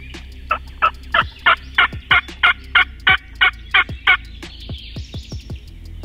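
Turkey yelping: a run of about a dozen short, evenly spaced yelps, roughly three a second, stopping about four seconds in, with a few fainter notes after. Songbirds chirp faintly in the background.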